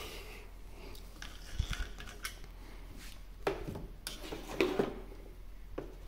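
Handling noise: a scattered series of light clicks, clinks and knocks as the Tesla Wall Connector's glass faceplate and plastic plugs are moved about. The handling is loudest around three and a half and four and a half seconds in.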